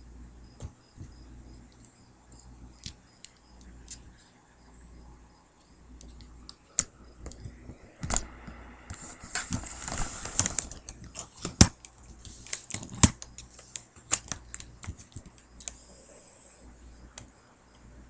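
Clicks, taps and fabric rustling as the handheld recording device is moved about on a couch. The rustling is busiest about eight to eleven seconds in.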